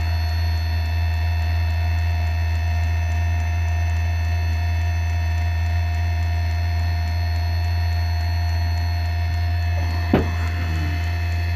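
Diesel furnace running just after ignition: a steady low hum from its blower and burner, with a few steady tones above it. One short knock about ten seconds in.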